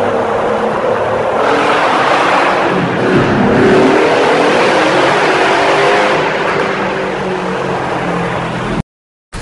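Motorbike engine accelerating through a road tunnel, loud, with a rush of noise over the engine note. The note climbs through the middle, and the sound cuts off abruptly near the end.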